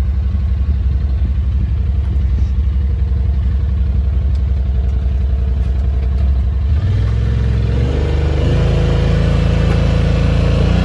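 Side-by-side UTV engine idling steadily, then revving up in a step about seven seconds in and higher again about a second and a half later as it backs up to pull a stuck ATV out of the mud.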